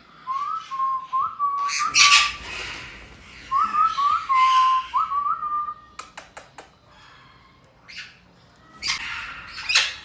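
Short-tailed parrots giving harsh, loud squawks, mixed with a clear whistled phrase of short upward-sliding notes that comes twice. About six seconds in there are four quick sharp clicks.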